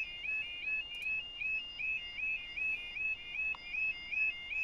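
A railway level crossing's audible warning alarm (yodalarm) sounds a steady repeating warble, stepping up and down between two high pitches about twice a second. It signals that the crossing is closed for an approaching train. It is heard through a video call.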